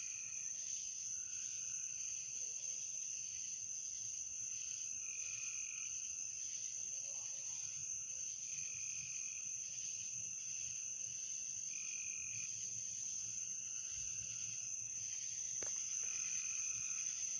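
Night chorus of insects and frogs: a steady high-pitched drone, with a short call repeating about every three seconds. Near the end there is one brief click.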